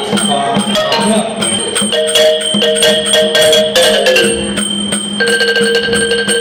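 Traditional Thai piphat ensemble music: a ranat ek xylophone melody over hand strokes on a taphon barrel drum, with long held notes above, one gliding down about four seconds in.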